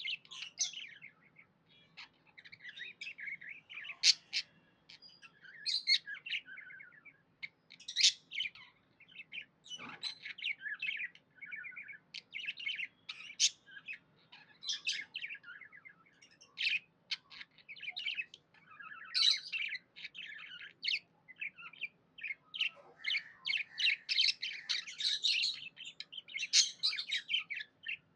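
Budgies (budgerigars) chirping and warbling in a continuous stream of short high chirps, with sharper, louder calls every second or so.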